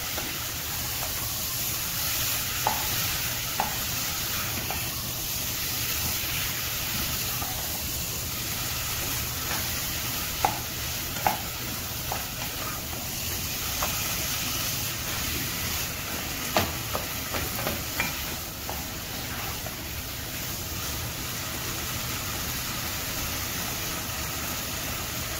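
Squid rings sizzling as they fry in an onion-tomato masala, stirred with a wooden spatula that now and then knocks against the pot.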